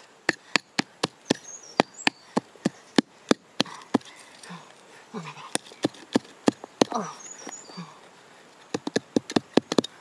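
Rapid sharp knocks, about three or four a second with a couple of short pauses, of a wooden digging stick striking into packed earth.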